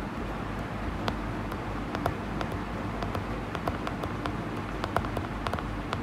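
Stylus tapping and scratching faintly and irregularly on a tablet screen while handwriting, over a steady low hum.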